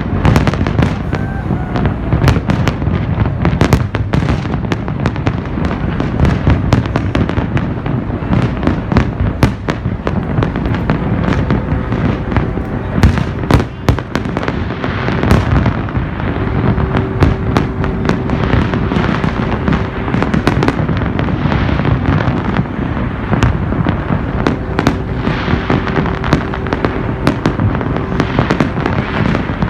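Large fireworks display: shells bursting in a dense, unbroken barrage of booms and sharp crackling bangs over a constant low rumble.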